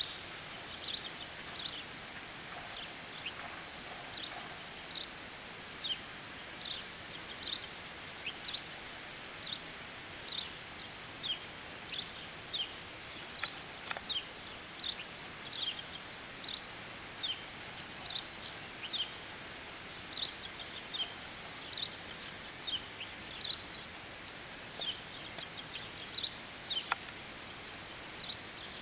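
A bird calling over and over: short, high chirps that slide down in pitch, roughly one a second, some in quick pairs, over a steady outdoor hiss and a faint, steady high tone.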